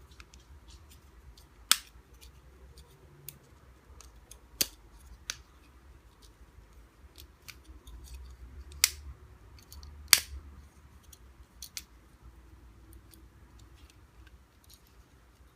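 Plastic transforming letter-N toy being folded by hand into robot form: scattered sharp plastic clicks and snaps as its parts swing and lock into place, four of them loud among many light ticks.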